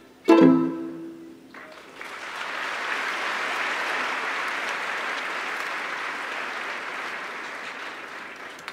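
A string quartet's closing chord, struck sharply and ringing out for about a second, followed by audience applause that holds steady and fades near the end.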